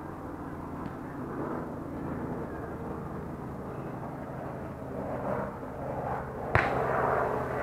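Steady low engine hum under outdoor ambience, with one sharp slap of a hand hitting a beach volleyball about six and a half seconds in.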